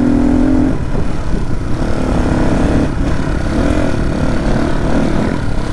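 Dirt bike engine running under way on a muddy trail, its pitch holding, dropping and rising again as the throttle is worked, over a steady low rumble.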